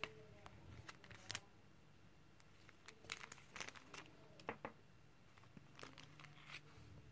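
Faint crinkling and rustling of a sticker sheet in a plastic sleeve being handled, in scattered light crackles and clicks.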